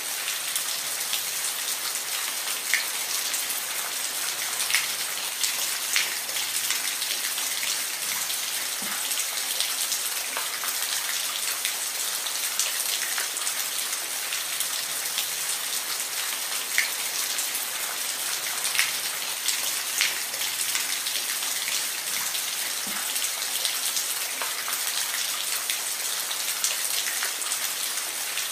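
Steady rain falling, an even hiss with scattered louder individual drops ticking every second or two.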